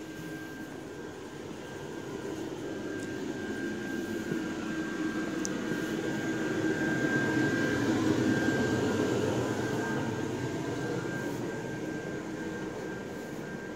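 Steady mechanical rushing noise with a constant high-pitched whine and a low hum, swelling to its loudest about halfway through and then easing off.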